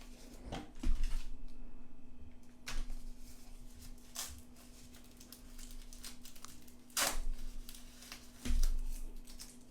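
Packaging and cables being handled by hand: scattered light knocks, clicks and rustles, a few with a dull thud, over a faint steady hum.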